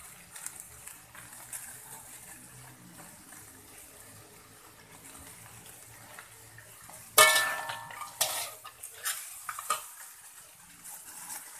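Metal spatula stirring crab and greens in a metal wok over a faint frying sizzle. About seven seconds in the spatula strikes the wok with a loud ringing clang, followed by a few lighter clinks and scrapes.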